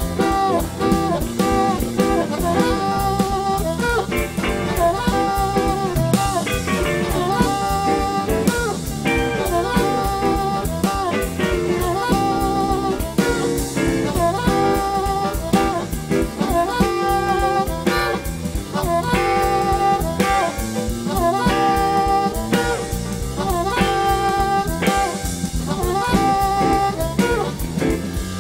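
Amplified blues harmonica playing a solo line with bent notes over a live band, the drum kit keeping a steady beat.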